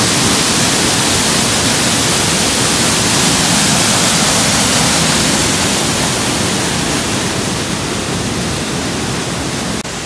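Waterfall and the creek cascading below it: water rushing and splashing over granite rock close to the microphone, a loud, steady rush that gets a little softer in the second half.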